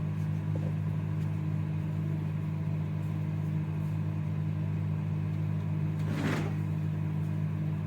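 A steady low hum with fixed tones, with a brief rushing noise about six seconds in.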